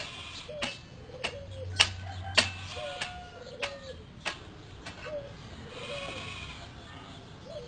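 An animal's short, low calls repeating about once or twice a second, each dipping in pitch at its end, mixed with sharp clicks.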